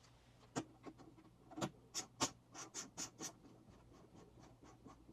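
Clicks and taps of camera rig hardware being handled and fitted while a monitor is mounted: a few separate sharp clicks, a quick cluster of clicks in the middle, then faint light ticks.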